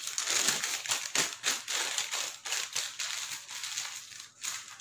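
Brown paper takeaway bag rustling and crinkling as it is handled, a dense run of small crackles.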